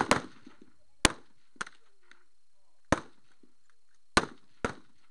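Rifle shots on a highpower match firing line: about six sharp cracks at uneven intervals, each with a short echoing tail, and a fainter crack about a second and a half in.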